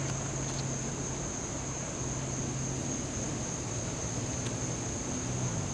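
Steady outdoor background between pitches: a low engine-like hum, a constant high thin buzz like insects, and soft hiss, with no distinct events.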